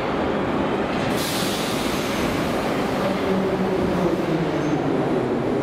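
Metro train moving slowly along a station platform: a steady rumble of wheels and running gear, a brief high hiss about a second in, and a low hum with a few steady tones in the second half.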